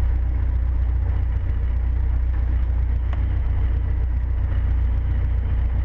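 Cessna 150's four-cylinder Continental O-200 engine running at low taxi power, a steady low drone heard inside the cabin.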